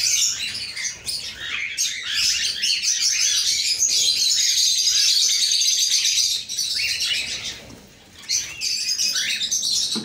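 Many cockatiels chirping and calling at once in a breeding aviary: a dense, continuous high chatter that dips briefly about eight seconds in.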